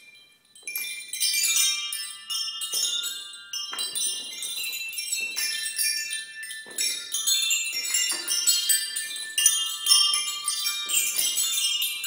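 Musical swing's coloured chime rods, hung beneath the seat, clinking and ringing in clusters of high overlapping tones as the swing moves back and forth. A new cluster is struck about every second or so, after a short quiet moment near the start.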